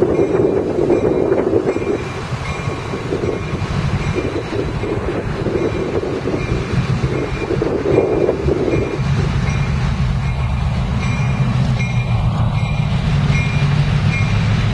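LIRR MP15AC diesel switcher locomotive running as it leads a work train slowly over a grade crossing, with a high ding repeating evenly over it, the crossing bell. The engine's low drone grows stronger about nine seconds in as the locomotive draws near.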